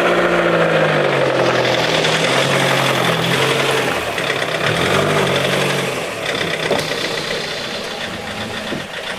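Small van's engine running as it drives up and pulls to a stop, then idling; the sound eases off about six seconds in.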